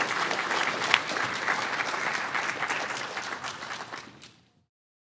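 Audience applauding, a dense patter of many hands clapping that fades out about four seconds in.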